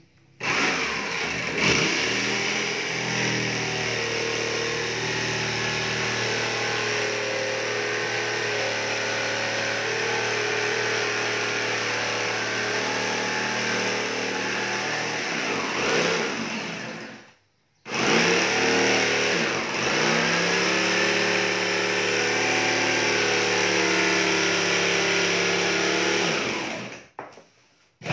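Corded jigsaw running and cutting through a thin plywood sheet with a steady motor whine. It stops briefly partway through, starts again, and stops just before the end.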